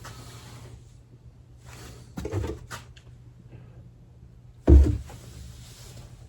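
Two knocks from handling things on the workbench: a light one about two seconds in, then a loud, low, hollow thump a couple of seconds later, followed by a faint hiss.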